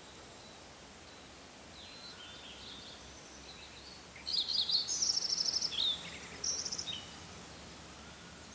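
A songbird singing a brief phrase of rapid, high trilled notes about four seconds in, with softer chirps before it, over a steady faint outdoor hiss.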